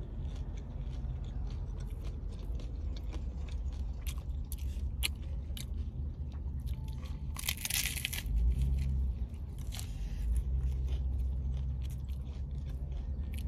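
A person chewing and crunching a hard-shell corn taco, with many crisp crackles as the fried shell breaks up and a longer, louder crunchy stretch a little past the middle.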